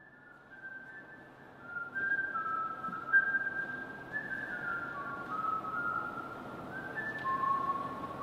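A slow tune whistled in single clear notes, each held about half a second to a second, stepping up and down in pitch, growing louder about two seconds in.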